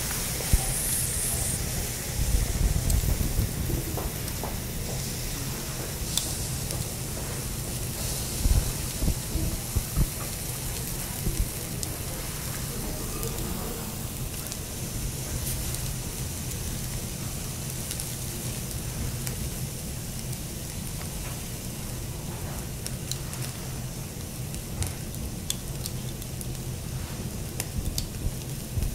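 Sauce-dipped Matsusaka wagyu steak sizzling steadily on a wire grill over charcoal, with small crackles and pops as juices drip onto the coals. A few low thumps come in the first third.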